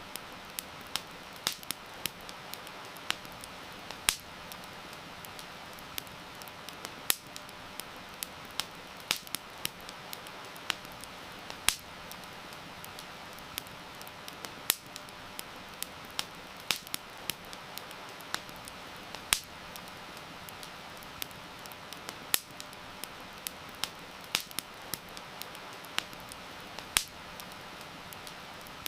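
Campfire crackling, with sharp irregular pops and snaps, over a steady hiss of heavy rain.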